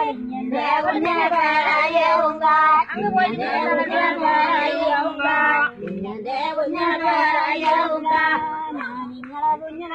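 Continuous singing of a Malayalam rice-transplanting folk song (njattu pattu), a melodic line with long held notes.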